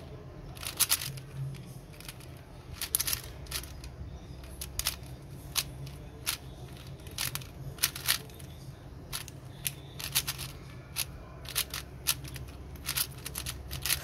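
Plastic 4x4 Rubik's cube being turned by hand: its layers snap round with sharp clicks that come irregularly, a couple to a few a second.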